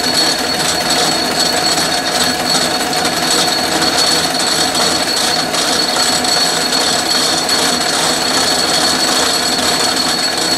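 Atlas metal lathe running steadily with the half nut engaged, the carriage power-feeding a boring bar into a steel bore on a light first pass of a 12 threads-per-inch internal thread. The machine noise holds even throughout, with a steady high whine over it.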